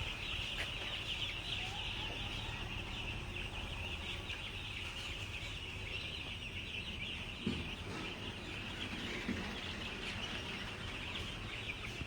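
A shed full of broiler chickens peeping and chirping all at once: a steady, dense chorus of many high-pitched calls, with no single bird standing out.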